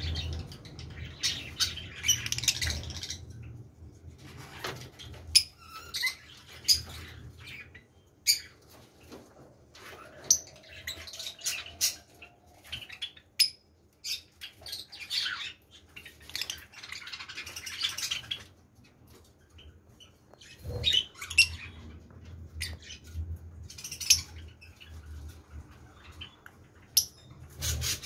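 Fischer's lovebirds chirping: short, sharp, high-pitched calls that come in scattered clusters, over a low steady hum.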